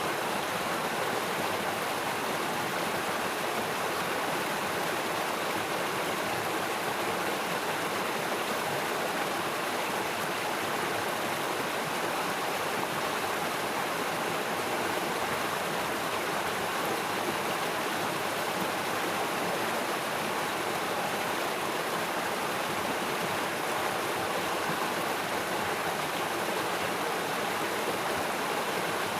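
Steady rushing of flowing river water, an even noise without breaks.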